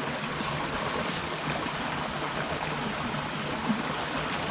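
Steady rush of flowing water from a stream running through a gorge, with one short thump near the end.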